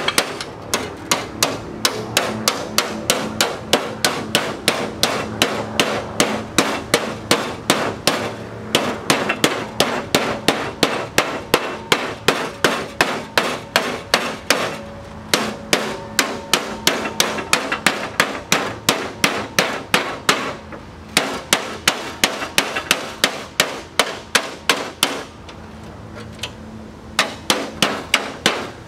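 Hammer striking a sheet-steel patch panel in quick, steady blows, about three a second, with a few short pauses; the metal rings after the blows.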